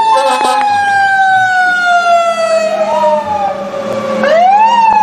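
Fire engine siren winding slowly down in pitch, with a second siren wailing up and back down twice over it, about halfway through and near the end.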